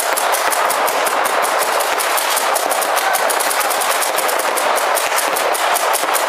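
Paintball markers firing in a continuous rapid stream of sharp pops, many shots a second, without a pause.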